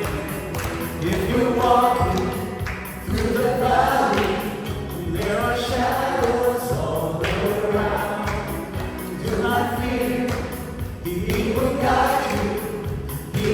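Church praise and worship team singing with a band: several voices in long sung phrases over a steady beat.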